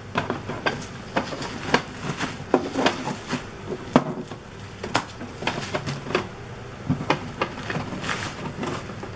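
Irregular knocks, clicks and rustling as a boxed dot matrix printer and its cable are handled in their packaging.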